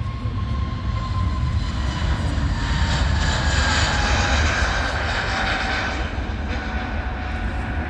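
Airbus A320neo jet airliner passing by. The engine noise swells to a peak a few seconds in and then eases, and its whining tones slide down in pitch as it goes past.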